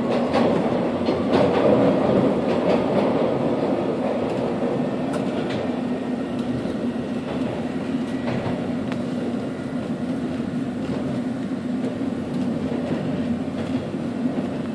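Toronto subway train running along the track, heard from inside the leading car: a steady rumble of wheels on rails with occasional clicks over the rail joints, a little louder in the first few seconds.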